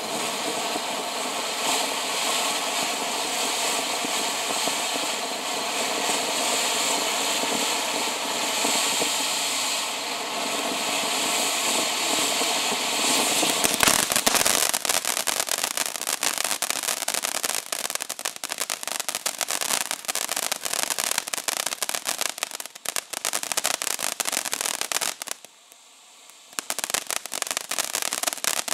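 Ground fountain firework spraying sparks: a steady hiss at first, then dense crackling from about halfway through. The crackling stops for about a second near the end and then starts again.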